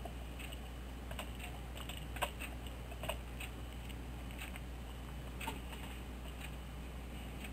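A few scattered computer mouse clicks over a steady low hum.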